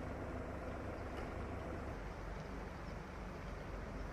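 A steady low engine rumble, like a motor idling, with a faint hiss of outdoor noise over it.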